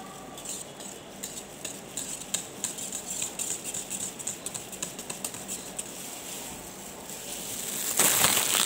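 Wire whisk stirring ice cream mix in a stainless steel pot: quick, irregular clicks and scrapes of the wires against the metal. Near the end a louder, rougher noise takes over.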